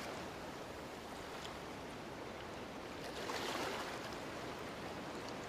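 Faint, steady hiss of sea water and small waves, swelling slightly about three seconds in.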